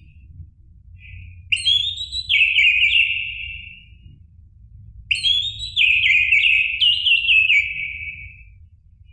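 Orange-headed thrush singing two phrases, each a run of quick whistled notes that step down in pitch over about three seconds, with a pause between them.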